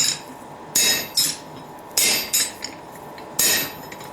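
Hammer blows on a spring swage holding hot steel bar stock, forging a round end: three pairs of sharp strikes, each with a short bright metallic ring.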